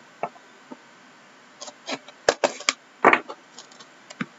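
Crackles and clicks of hands working open a sealed, wrapped cardboard box of Upper Deck The Cup hockey cards. A few faint clicks at first, then a cluster of louder crackles about two to three seconds in.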